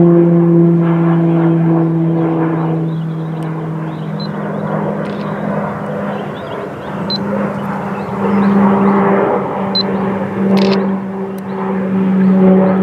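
Military aircraft engines running, a steady droning hum over a rushing noise, whose pitch shifts slightly about a third of the way in.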